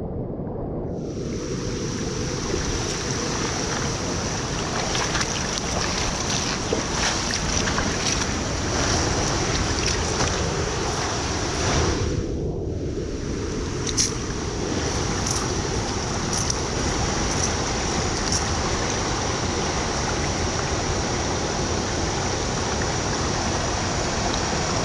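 Steady loud rush of moving water, with wind on the microphone. The higher hiss drops out for a moment about halfway through, leaving only a low rumble.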